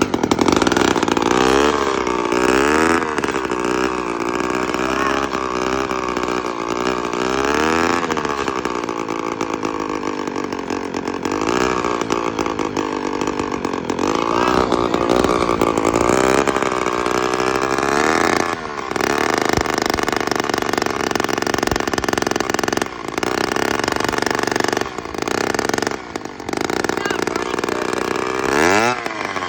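Small scooter engine with its muffler cut off, straight-piped and loud, just started and revved up and down again and again, with a few brief dips. It runs rough and bogs down, which the owners put down to a dirty carburetor.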